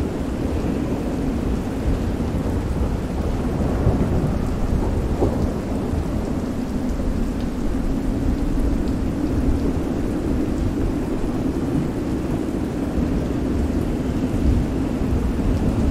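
Stormy ambience of steady heavy rain over a continuous deep rumble of thunder, holding even throughout.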